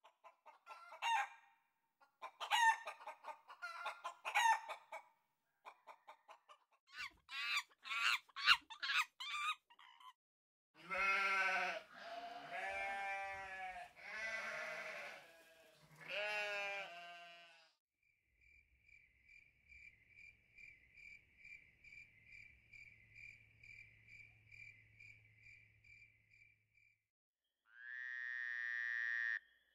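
Chickens clucking in quick runs of short calls for about ten seconds, followed by four long drawn-out animal calls. After that comes a steady pulsing high chirp over a low hum, and a short pitched call near the end.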